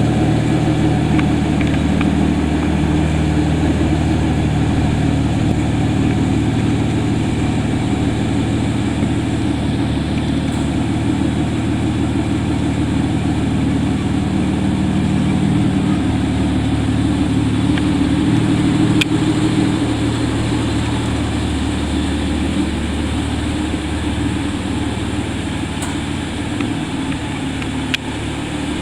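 Aston Martin DBS's V12 engine idling steadily, with a deep, even note and no revving.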